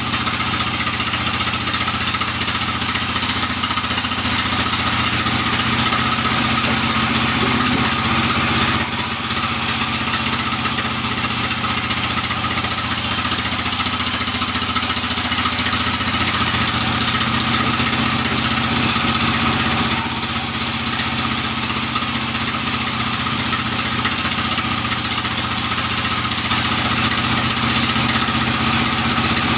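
Powered sawmill saw running steadily and ripping a long albasia (sengon) log lengthwise, its engine drone under a dense cutting hiss that shifts in tone a few times as the log is fed through.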